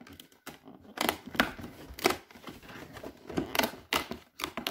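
Fingernails picking, scratching and prying at a perforated cardboard advent calendar door. Irregular sharp clicks and scrapes of stiff card, about ten in all, as the door is worked loose.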